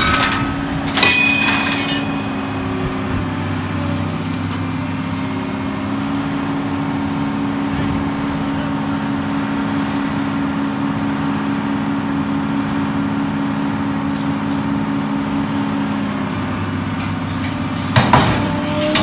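Heavy-equipment engine running at a steady pitch, with sharp metal clanks about a second in and a few knocks near the end.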